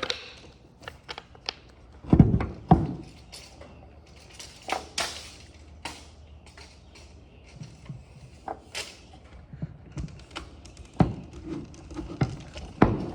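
Irregular clicks, taps and knocks of bolts and mount parts being handled and fitted, with a few heavier thuds, the loudest about two seconds in and near the end.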